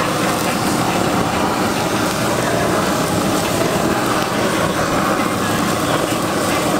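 Handheld gas torch running with a steady roaring hiss as it sears minced-pork tteokgalbi patties sizzling on a flat-top griddle.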